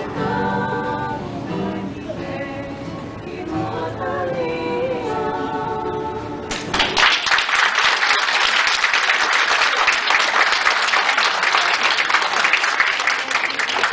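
Small group of women singing a song with acoustic guitar accompaniment. The song ends about halfway through, and the room breaks into loud applause that carries on to the end.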